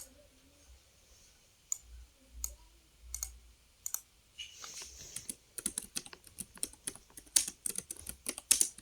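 Typing on a computer keyboard: a few scattered key presses, then quick, continuous typing from about halfway through.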